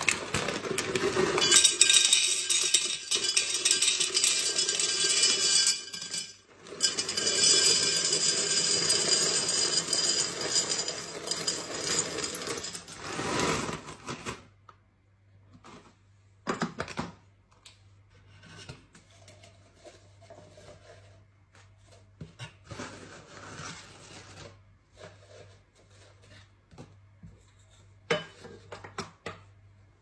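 Dry penne pasta poured from a bag into a tall clear canister: a loud, dense rattling cascade of pasta hitting the container and the pasta already in it, with a brief pause a little after six seconds. The pour ends about fourteen seconds in, and quieter scattered clicks and rustles from handling follow.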